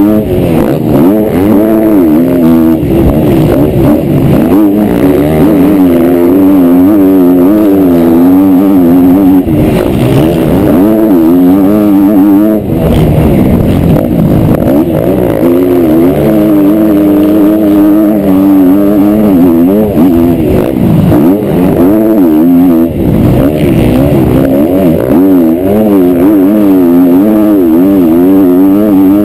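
Motocross bike engine heard from an onboard camera at race pace, its revs rising and falling constantly through throttle and gear changes, with a brief drop-off about twelve seconds in.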